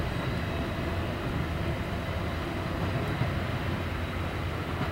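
Steady low rumble of a double-stack intermodal freight train rolling past.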